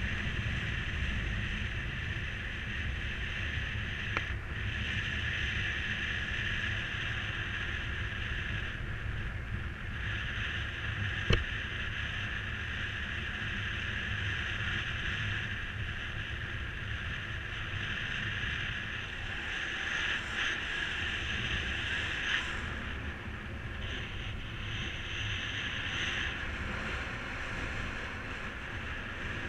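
Wind rushing over the microphone in flight under a paraglider: a steady low rumble with a high hiss, and a single click about eleven seconds in.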